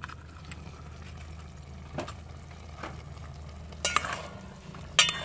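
A stainless steel pot of sautéed bitter gourd and string beans simmering steadily over a wood fire as its glass lid is lifted off. A metal utensil clinks against the pot, with two sharp ringing clinks about four and five seconds in.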